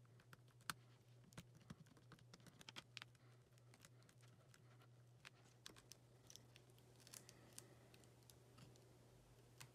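Faint, scattered sharp clicks and light scrapes of a plastic spudger prying and tapping at a laptop's display-cable connector on the motherboard, with a few scratchy rustles of tape being pulled back by hand near the end. A steady low hum runs underneath.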